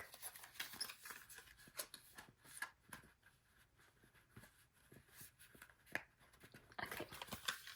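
Faint rustling and light clicks of paper and plastic packaging being handled, busier near the end.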